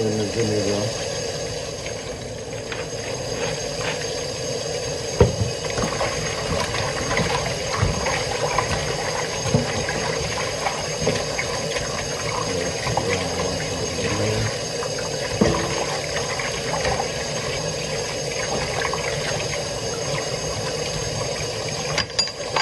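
Kitchen tap running steadily while raw chicken pieces are washed under it, with a few sharp knocks of things being set down.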